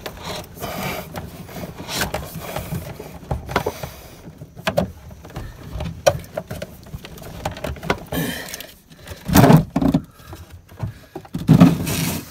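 Old push-pull steering cable being dragged by hand through its run inside the boat, scraping and knocking irregularly against wiring and the compartment edges, with two louder bumps in the last few seconds.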